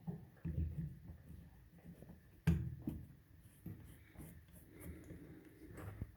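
Handling noises at a repair bench: rubbing and light knocks as the phone circuit board and tools are handled, with one sharper knock about two and a half seconds in.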